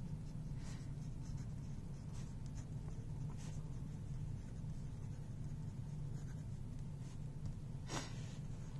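Waterman fountain pen's stainless steel nib scratching lightly across paper as a line of handwriting is written, over a steady low hum. A brief, sharper tick comes about eight seconds in.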